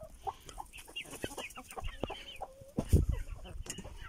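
Chickens clucking in a flock, many short calls in quick succession, with a single dull thump about three seconds in.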